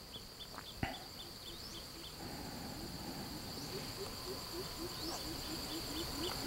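Outdoor insect chorus: a steady high buzzing with short high chirps, a single light click about a second in, and from about two seconds in a low call repeated in short rising notes, about three a second.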